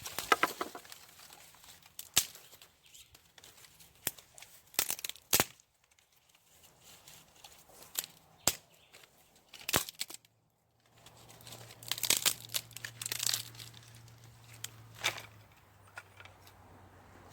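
Scattered handling noises of outdoor cooking prep: crinkling, tearing-like rustles and sharp clicks, with a low steady hum in the second half. The sound drops out completely for under a second about ten seconds in.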